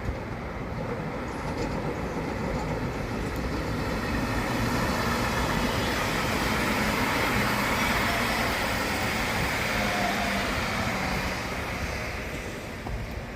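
A train passing through at speed: a rushing rumble of wheels on rail that builds over a few seconds, peaks in the middle and then fades away.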